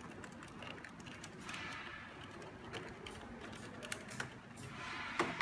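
Small irregular plastic clicks and handling noises as a circuit board and its housing are fitted into a split air conditioner's indoor unit, with a sharper click near the end.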